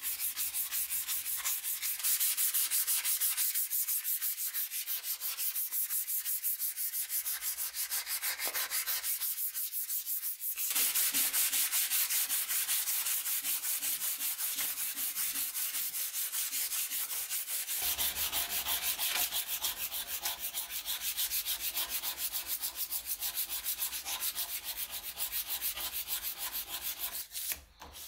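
Sandpaper rubbed by hand in quick back-and-forth strokes over the rusty steel head of an axe, scouring off the rust.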